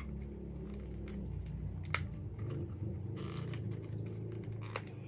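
A few light clicks and a short scraping rustle from handling a laptop and its memory modules during a RAM swap, over a steady low hum.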